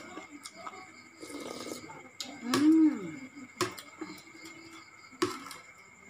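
Eating sounds: a fork clicking sharply against a ceramic bowl a few times, soft mouth and chewing noises, and a short hummed voice sound, rising then falling, about two and a half seconds in, the loudest thing heard.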